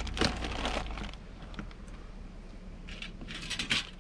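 Metal bowl and metal utensils clinking and clattering as they are handled in a plastic tub, in a cluster of short clinks in the first second and another about three seconds in.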